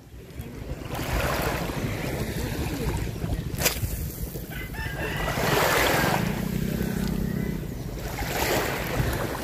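Small waves washing onto a pebble shore, swelling and fading three times, with wind rumbling on the microphone and one sharp click about three and a half seconds in.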